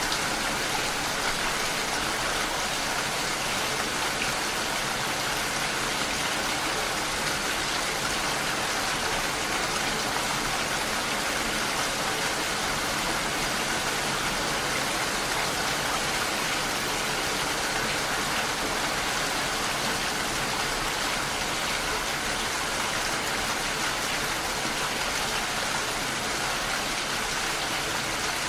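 Steady rainfall, an even hiss that holds the same level throughout.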